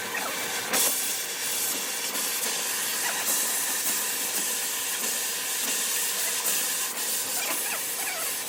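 A steady hiss that jumps louder about a second in and then holds.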